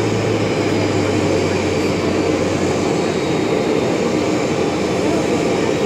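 Bombardier CRJ-200 regional jet's rear-mounted General Electric CF34 turbofans running at idle near the gate: a steady noise with a faint thin high whine over it.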